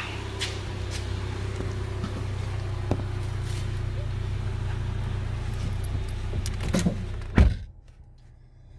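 A steady low hum with light clicks and rattles as someone climbs into a car, then a car door slams shut about seven and a half seconds in. After the slam the hum is cut to a quiet cabin.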